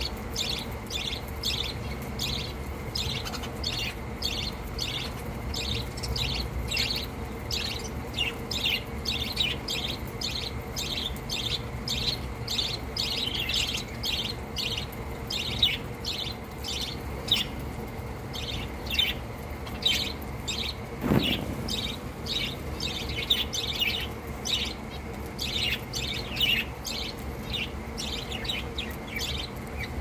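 A flock of budgerigars chattering, with many short chirps overlapping several times a second. A single dull thump cuts through about two-thirds of the way in.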